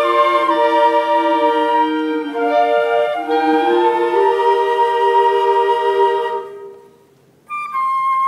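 Student symphonic band playing held brass and woodwind chords that die away about six and a half seconds in; after a brief silence, a new phrase enters with a high held note near the end.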